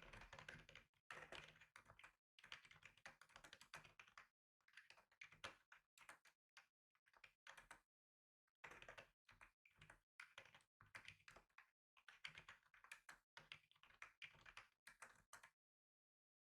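Faint typing on a computer keyboard: quick runs of key clicks in bursts, with a pause of about a second near the middle and another near the end.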